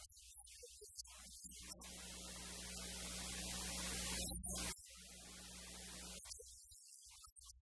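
Steady electrical mains hum with a hiss over it, swelling slowly, then cutting off suddenly about two-thirds of the way through and coming back quieter, with brief dropouts.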